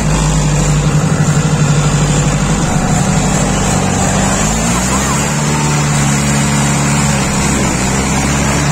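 Mahindra tractor diesel engine running steadily while the tractor drives through deep water, with water churning and splashing around the rear tyres. The engine note steps up slightly about halfway through.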